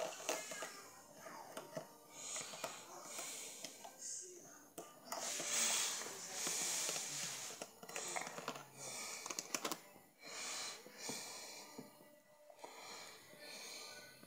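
Hands working hair out of the bristles of a paddle hairbrush: a run of short scratchy rubbing strokes, one after another.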